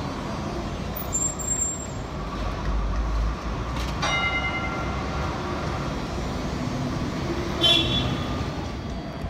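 Z3-class Melbourne tram moving off through an intersection, its motors and wheels rumbling steadily on the rails amid street traffic. A single metallic ring sounds about four seconds in, and a brief high-pitched squeal comes near the end.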